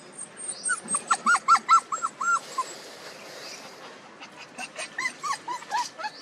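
Small puppies whimpering and yipping in quick runs of short, high, rising-and-falling cries. There is a fast burst of about seven cries about a second in, a short lull, then more cries near the end.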